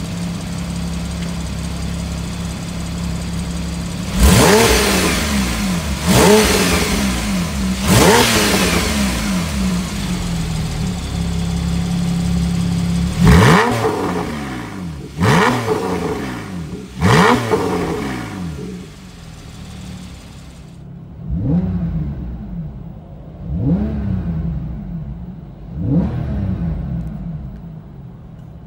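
Porsche 991.1 Carrera S 3.8-litre flat-six with an Armytrix valve-controlled exhaust, idling and then blipped in sets of three sharp revs, each falling back to idle. The first three, about four seconds in, have the valves off, and the next three, about thirteen seconds in, have the valves on. From about twenty seconds in, three more revs with the valves off are heard muffled from inside the cabin.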